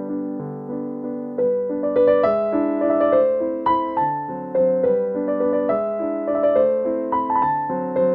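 Background piano music: held chords, with a higher melody coming in about two seconds in.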